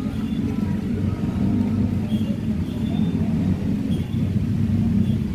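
Black-and-white cat purring steadily, a low continuous rumble while its head is stroked.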